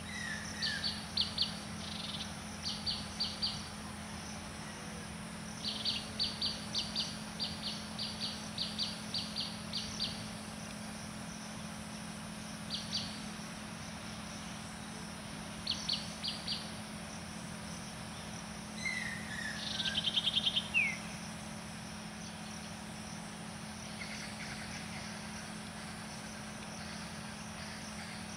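Birds calling in rural greenery: runs of short, sharp high chirps repeated in quick groups of three to six, with a brief fast trill and a falling note about two-thirds of the way through, over a steady low hum.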